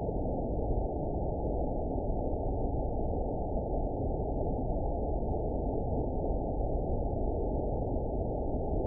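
Waterfall's rushing water, slowed down, heard as a steady, deep rushing noise with no high end.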